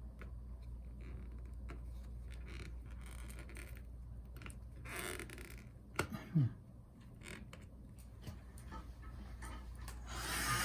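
Faint clicks and taps of small hand tools working on a laptop's parts over a steady low hum, with a sharp click and a brief falling squeak about six seconds in, and a steady hiss starting near the end.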